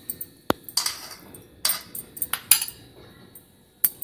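Perforated steel spoon scraping and clinking against an aluminium kadhai while pushing lumps of solid ghee around the pan. The strokes are short and uneven, with a sharp tap about half a second in and another near the end.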